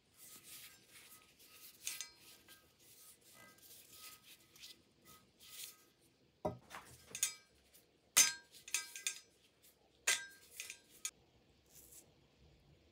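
A metal tool clinking and knocking against a hard surface: a run of light clinks and scrapes, then three sharper knocks about six and a half, eight and ten seconds in, each leaving a brief metallic ring.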